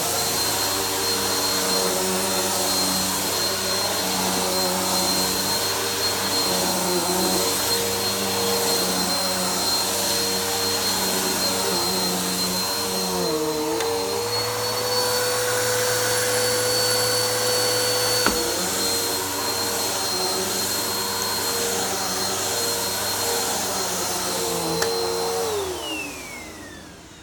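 Vacuum cleaner running steadily over a floor, its motor whine dipping and shifting pitch partway through. Near the end it is switched off and spins down with a falling whine.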